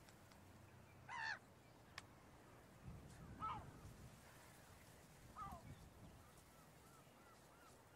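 Gulls calling over the mudflats: three separate cries that drop in pitch, then a quick run of short, faint notes near the end.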